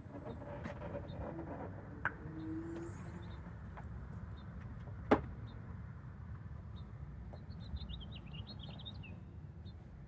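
Small birds chirping over a low steady rumble, with a click about two seconds in and a single sharp knock about five seconds in.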